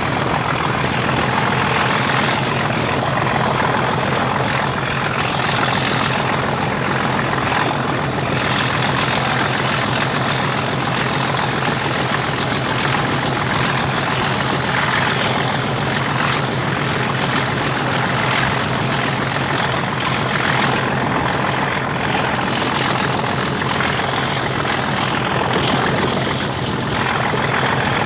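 English Electric Class 37 diesel locomotive 37029 working hard as it hauls the train, its V12 engine giving a loud, steady drone with a steady high whistle over it, heard from the coach just behind.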